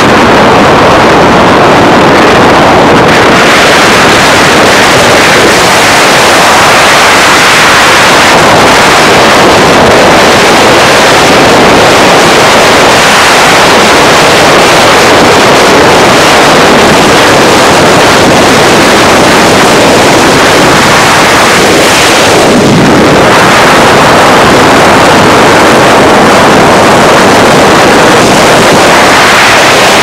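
Loud, steady rush of wind buffeting the camera microphone, mixed with the tyre and road noise of a car at highway speed.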